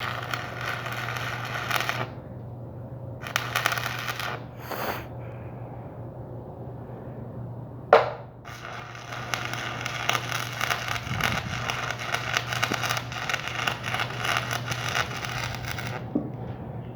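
Electric arc welding: a dense crackling sizzle from the arc in several runs, stopping and starting, over a steady low hum. A single loud clank cuts in about eight seconds in.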